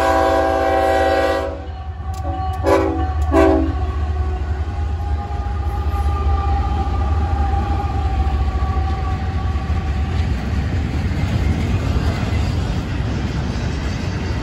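Freight locomotive horn: a long blast that cuts off about a second and a half in, then two short toots. Florida East Coast GE ES44C4 diesel locomotives then pass close by, followed by double-stack intermodal well cars rolling steadily over the rails.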